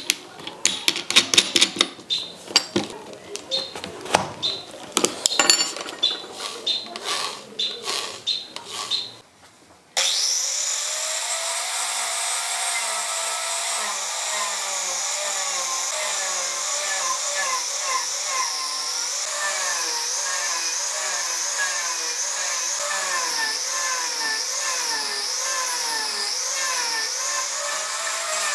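Clicks and knocks of an angle grinder's guard and disc being fitted by hand. About ten seconds in, the angle grinder starts abruptly and runs steadily with a wood-carving disc, gouging into a wooden log. Its pitch rises and falls in a slow rhythm as the disc bites and eases.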